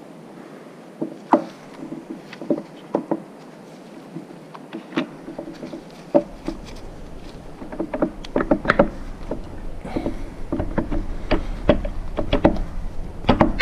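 Metal clicks and knocks from handling the feed-rate selector dial and lever while they are fitted onto the feed gearbox of a Schaublin 53 milling machine. A few separate clicks come first, then a quick run of clicks and taps over the last five seconds or so. A low rumble comes in about six seconds in.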